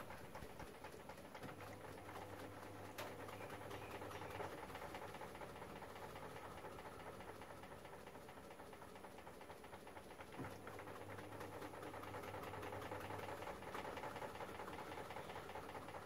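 LG Fuzzy Logic TurboDrum top-loading washing machine running faintly, its motor humming low in two stretches of a few seconds, about a second and a half in and again about ten seconds in. It is still working to rebalance an unstable load in the drum.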